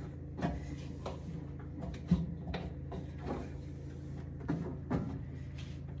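A cloth wiping the inside walls of a microwave, with short rubs and small knocks about once a second over a steady low hum.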